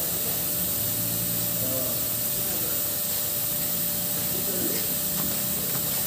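Steady hiss of compressed air escaping from the Mercedes-Benz Actros truck's air system, the leak at the gear-shift valve that is being repaired.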